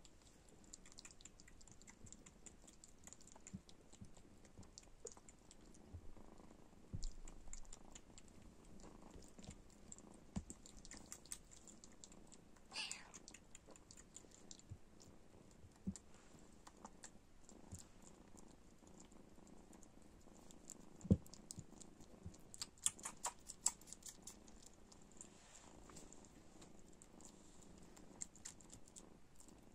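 Bengal kitten suckling from a bottle nipple: faint, rapid wet clicking and smacking from its mouth, with soft purring underneath.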